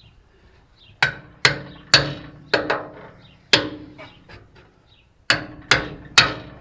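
Hammer blows on the metal rear axle assembly of a Ford 9N tractor, struck to knock the stuck axle loose: about nine sharp, ringing strikes in three bunches.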